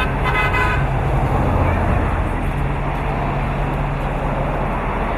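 Fire engine's diesel engine idling with a steady low hum, with a brief horn toot about half a second in. Indistinct crowd chatter runs underneath.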